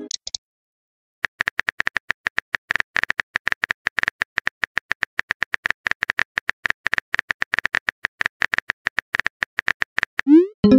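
Texting-app keyboard sound effect: rapid, irregular typing clicks as a message is composed. Near the end a short rising tone and pop, the chime of the message being sent.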